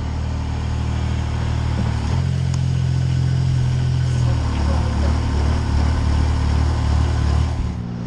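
Engine running at low speed, stepping up a little about two seconds in and stopping suddenly just before the end.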